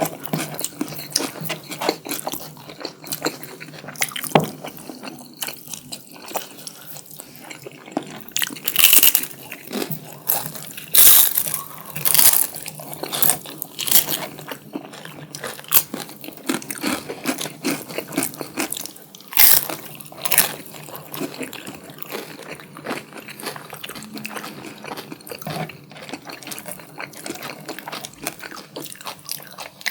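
Close-miked chewing and biting of spicy chicken curry and biryani rice: a dense run of small mouth clicks, with louder bursts about a third of the way in and again about two-thirds of the way in.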